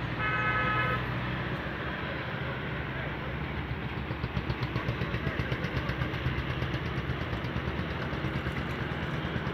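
A motor engine running, settling into an even chugging pulse of about four to five beats a second from around four seconds in; a short steady tone sounds in the first second.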